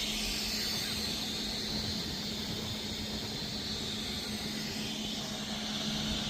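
Steady mechanical hum with a constant low tone and a hiss over it, like an engine running.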